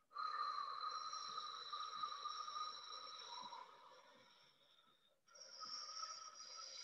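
Two long, slow breaths, the first lasting about five seconds and fading, the second starting just after it stops, each carrying a faint thin whistle.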